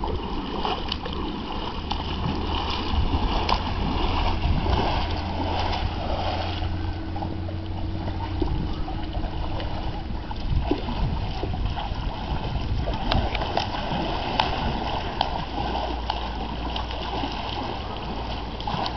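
Pool water splashing and lapping as a child paddles with the hands and kicks the feet while lying on an inflatable air mattress, with many small irregular splashes over a steady low rumble.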